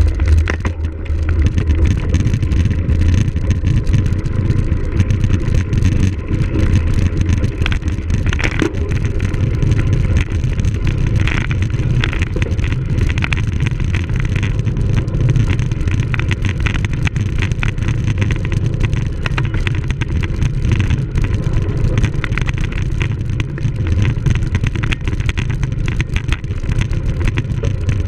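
Wind rushing over the microphone of a camera on a cyclocross bike being raced, with steady clatter and rattling from the bike over rough ground.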